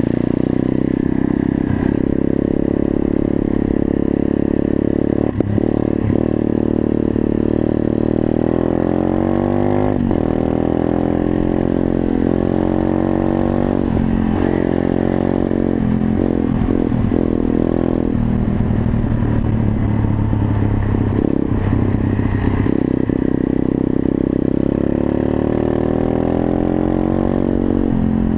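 WPB CRF70-style 125cc single-cylinder four-stroke pit bike engine pulling hard under a rider, its revs climbing and dropping back several times as it shifts through the gears, then holding steadier before climbing again near the end.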